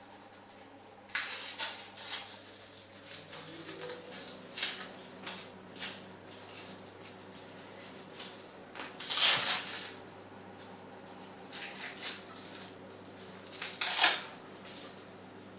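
Hook-and-loop straps being fastened around a bicycle frame: scattered rustles, clicks and knocks of the strap and mount against the frame tubes, with a longer scratchy rasp about nine seconds in and a sharp knock near the end.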